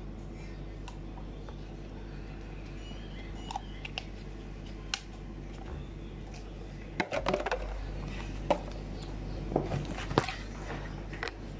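Handling noises: scattered clicks and crinkles as a plastic water bottle and the phone are handled, over a steady low hum. The clicks are busiest from about seven seconds in.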